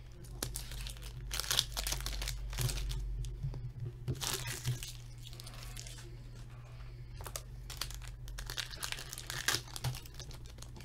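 The foil wrapper of an Upper Deck Champs hockey card pack is crinkled and torn open by hand in several short bursts. A steady low hum runs underneath.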